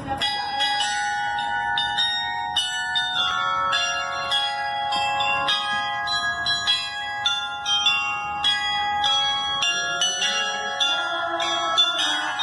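Large tower bells of Perth's Bell Tower (the Swan Bells) ringing a steady run of strikes, about two to three a second, each bell's tone ringing on and overlapping the next.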